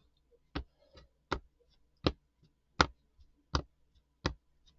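A steady run of sharp ticks or taps, evenly spaced at about four every three seconds, with quiet between them.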